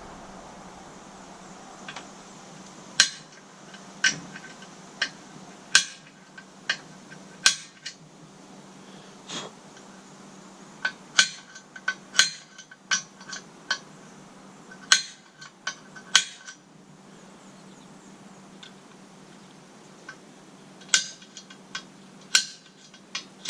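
Hammer tapping a center punch to mark drill locations on a steel plate: sharp metallic taps with a short ring, coming in irregular clusters of one to several strikes.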